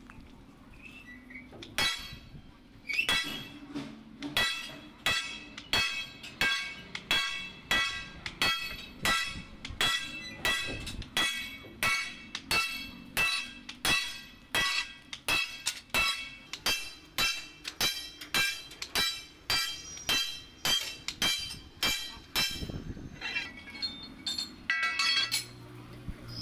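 Sledgehammer blows on a Tata truck leaf-spring leaf laid across a steel block, re-arching the spring. The blows come at a steady rhythm of about three every two seconds, each ringing metallic. They stop a few seconds before the end, where a few lighter clinks follow.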